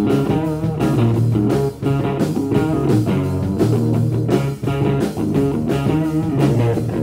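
Rock band playing the instrumental intro of a song: guitar and bass over a steady beat, with no vocals yet.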